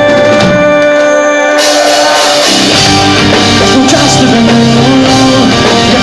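A rock band playing live: a long held note over the first two seconds, then drums with cymbals and electric guitars come in fully about a second and a half in, with a moving bass line from about two and a half seconds.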